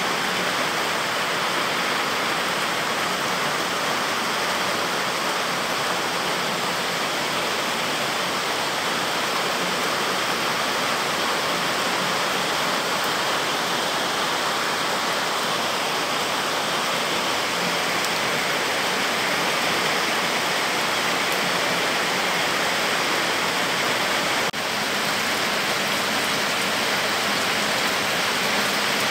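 Heavy rain pouring steadily onto trees, leaves and a flooded red-dirt road, a dense even hiss, with a momentary drop in level about three-quarters of the way through.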